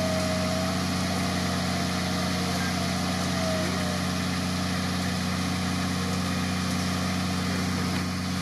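Off-road vehicle engine idling steadily at low revs, with no revving.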